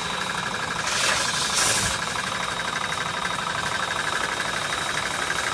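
Pressure washer motor and pump running steadily, with a fast pulsing and a high whine. A short burst of hiss comes about a second in.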